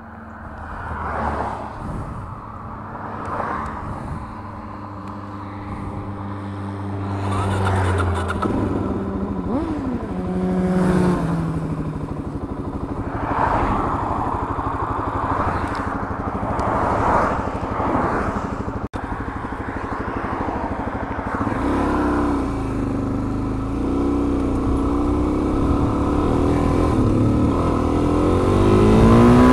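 Dual-sport motorcycle engine running and revving, its pitch rising and falling, then climbing steadily as it accelerates over the last several seconds.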